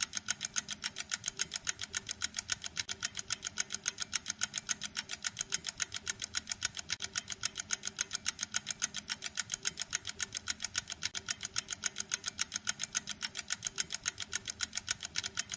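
Clock ticking sound effect, sped up to a fast, even run of about five sharp ticks a second, marking time passing quickly.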